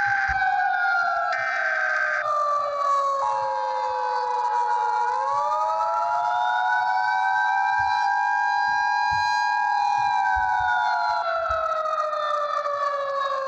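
Civil defense siren wailing: its pitch slides slowly down, rises to a held high tone, then falls again. The two-tone Emergency Alert System attention signal sounds steadily over it for about eight seconds in the middle, and a higher tone switches on and off in the first two seconds.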